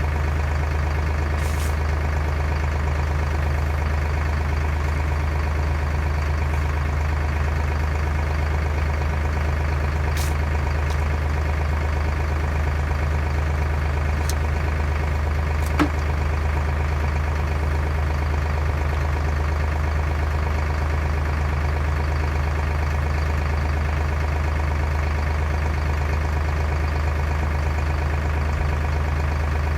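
A heavy engine idling steadily and evenly, with one sharp click about halfway through.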